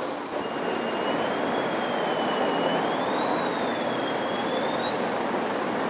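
F-16 fighter jet's engine: a steady jet roar with a high whine that wavers up and down and climbs in pitch toward the end.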